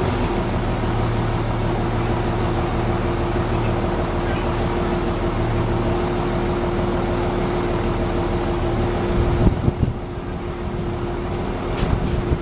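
Wheeled excavator's diesel engine running steadily close by, with a steady hum over it; a few knocks and a slight drop in level about nine and a half seconds in.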